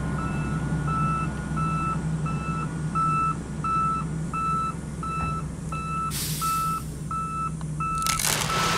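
Garbage truck backup alarm beeping at a regular pace over a low, steady truck engine idle. A short hiss comes about six seconds in, and a louder rush of noise starts near the end.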